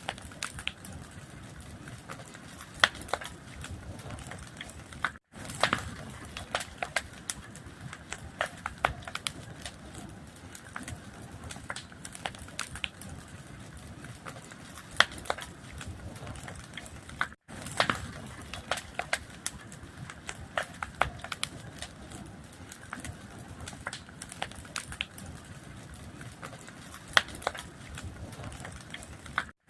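Fire crackling: a steady hiss dotted with frequent sharp pops, broken by three very short silent gaps.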